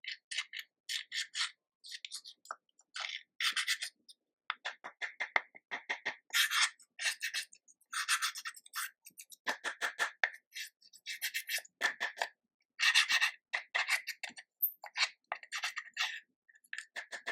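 Slime being kneaded, stretched and pressed by hand, giving a steady run of sticky clicks, crackles and squishes in quick irregular bursts.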